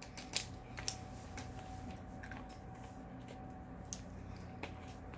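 A few light, sharp clicks of small plastic pieces being handled: resin diamond-painting drills and their storage containers, over a faint steady hum.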